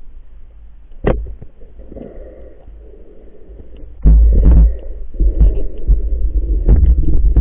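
Muffled underwater rumbling and knocks from a diver moving and handling a spear and a speared prawn, heard through a waterproof camera housing. A sharp knock about a second in, then louder, rougher rumbling from about four seconds in.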